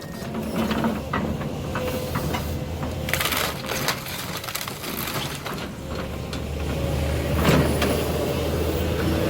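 Heavy demolition machine running steadily while the house's wood frame crunches and cracks as it is torn apart. Bursts of crunching come about three seconds in and again about seven and a half seconds in.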